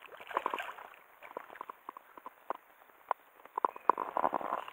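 Small irregular water splashes and drips, sparse at first and thickening into a quick flurry of splashing near the end.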